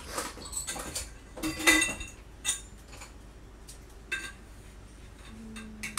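Light taps and clinks of small hard objects being handled, loudest a little under two seconds in, with a short low hum near the end.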